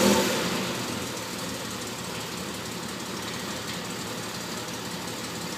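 Aston Martin DB2/4's straight-six engine idling steadily with the bonnet open, louder in the first second and then settling to an even idle.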